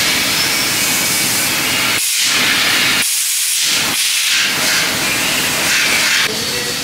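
A loud, steady hiss, strongest in the high range, with its deeper part dropping away briefly twice in the middle.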